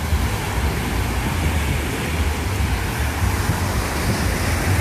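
Wind buffeting the microphone with a steady low rumble, over the even hiss of surf breaking on a sandy beach.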